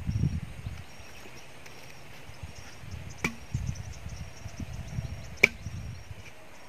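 Two sharp strikes of a metal digging tool into the roots and soil around a tree stump, the second louder, with a brief ring. Low wind rumble on the microphone and faint, repeated insect chirps.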